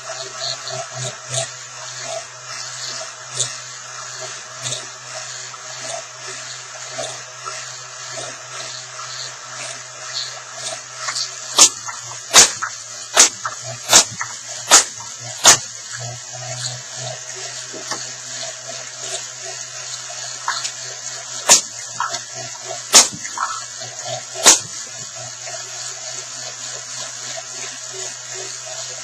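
Motor-driven wheels of a 3D-printed table tennis ball machine running with a steady whir, broken by loud sharp cracks as balls are fired: six in quick succession, about one a second, then three more a second and a half apart.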